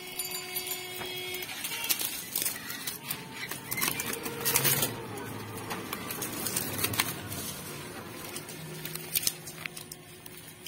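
Bundles of dry jute sticks rustling and clattering as they are tossed and stacked on the wooden flatbed of a motor van, with the busiest clatter about four to five seconds in.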